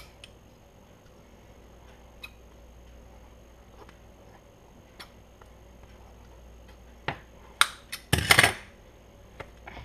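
Scissors cutting into a soft foam squishy: faint, scattered snips and clicks, then a few sharper clicks and a brief loud rustling scrape about eight seconds in.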